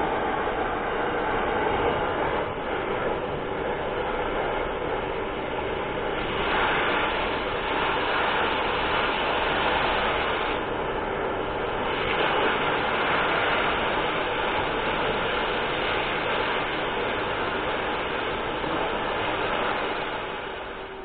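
Oxy-fuel cutting torch hissing steadily as it cuts excess steel from a rock-drill auger's welded tooth holders, opening a chamfer for welding.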